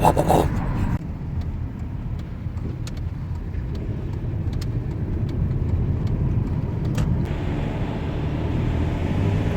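Cabin noise of a vehicle on the move while towing a loaded car trailer: a steady low engine and road rumble, with a few faint clicks.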